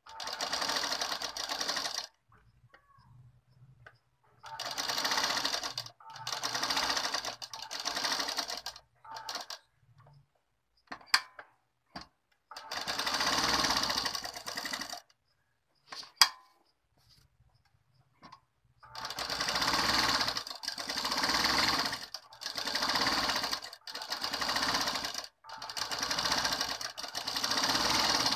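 Domestic sewing machine stitching the lining onto a blouse piece in short runs of one to two seconds, stopping briefly between runs as the fabric is turned around the curve. A few sharp clicks sound in the pauses, the loudest about 16 seconds in.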